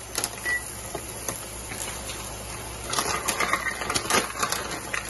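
Raw cashews poured from a plastic measuring cup into a steel pot of softening onions and tomatoes, making scattered light clicks and clatter that get busier about three seconds in.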